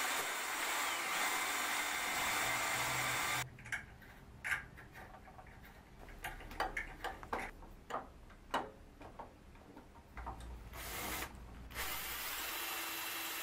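Cordless drill running for a few seconds, its bit spotting screw-hole positions through a steel bracket into a cast aluminium bandsaw table. A run of small clicks and knocks follows as the work and drill are handled, then a second short burst of drilling near the end.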